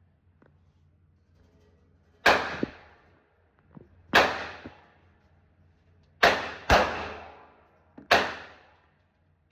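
Five gunshots at an indoor shooting range, each with a sharp crack and an echoing tail that fades over most of a second; two come close together about midway.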